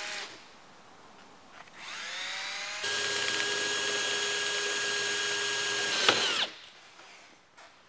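Cordless drill spinning up with a rising whine, then running steadily for about three seconds as a 10 mm bit bores a bracket hole through the van's sheet-metal roof channel, and winding down near the end.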